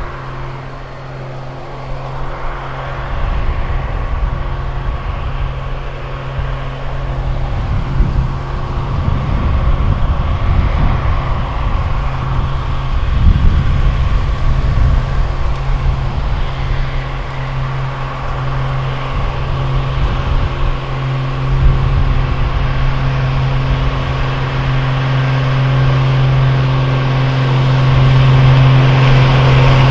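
Vintage tractor engine running at a steady speed, with an uneven low rumble underneath, growing louder toward the end.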